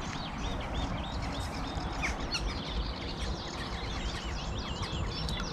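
Small songbirds singing: many quick, high chirps and warbling notes overlapping throughout, over a low steady rumble.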